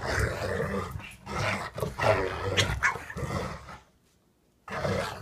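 Two dogs, a pug and a larger black-and-tan dog, growling and grunting as they play-fight. The sounds break off for about a second near the end, then start again.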